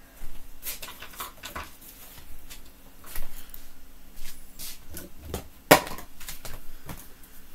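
Small household items being handled and set down on a dresser: rustling with a series of light clicks and knocks, and one sharper knock about three-quarters of the way through.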